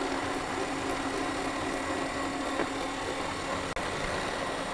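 Electric mixers running steadily: a hand mixer whisking an egg mixture in a bowl, with a stand mixer beating alongside, giving an even motor hum.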